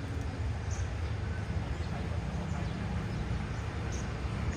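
Diesel locomotive of a passenger train running at the station, a steady low rumble, with a few faint high bird chirps over it.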